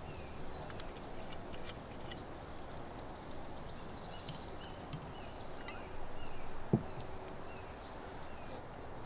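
Birds chirping with short, repeated falling calls over steady outdoor background noise, with a brief sharp sound about seven seconds in.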